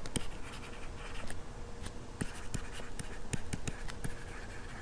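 Stylus writing on a tablet screen: light scratching broken by a scatter of sharp taps as the pen tip strikes the glass.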